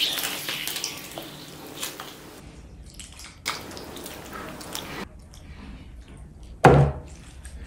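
Thick gravy poured from a glass bowl onto a mound of rice, with wet splashing and dripping, then one dull knock near the end.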